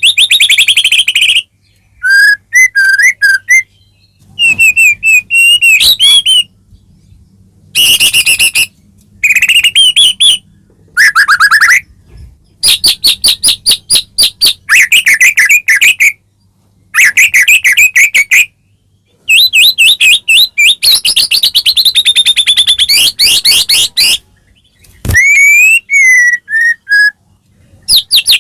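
White-rumped shama singing: loud phrases of fast repeated notes and whistled slides, each lasting a second or two, broken by short pauses.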